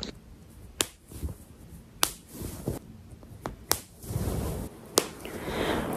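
Cotton bedding rustling as a duvet and its cover are handled and gathered, with several sharp clicks scattered through and the rustle fuller near the end.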